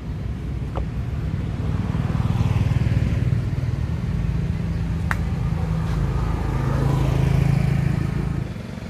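Motor vehicle engine rumble with a low hum that swells louder twice, about two seconds in and again near the end. A single sharp click about five seconds in.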